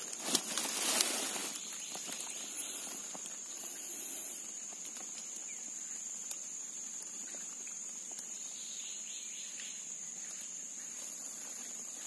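Steady high-pitched drone of insects in a swamp, with a short burst of noise in the first second and a half.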